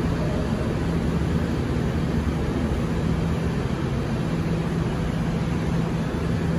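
Steady hum of an R68 subway train standing in the station with its doors open, its air-conditioning and auxiliary equipment running: an even rushing noise over one low steady tone.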